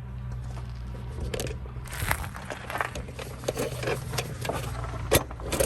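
Metal tools clinking and scraping on a truck drum brake's shoes and return springs as they are pried loose, with a sharp metallic knock about five seconds in, over a steady low hum.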